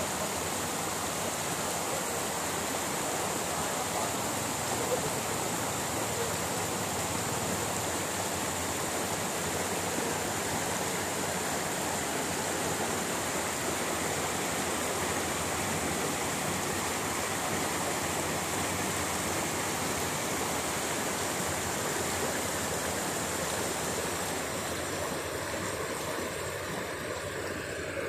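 Shallow rocky stream rushing over stones: a steady, even rush of water that fades a little near the end.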